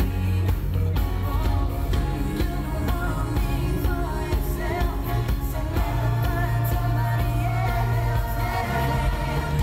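Male vocal harmony group singing a pop song live, backed by a band with drums and a heavy bass line.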